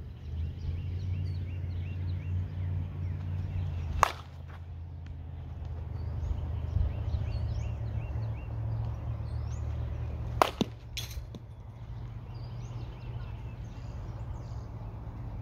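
Two sharp cracks of a softball bat striking the ball, about six seconds apart, the second followed a moment later by a fainter knock. Birds chirp throughout over a steady low rumble.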